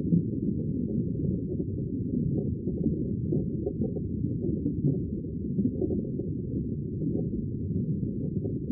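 Background music heavily muffled so only its low end comes through: a dense, steady rumble with no clear beat or melody.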